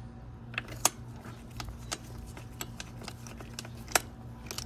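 Scattered metallic clicks and light taps of a socket and extension being worked onto a stuck spark plug, with two sharper clicks, one about a second in and one near the end, over a steady low hum.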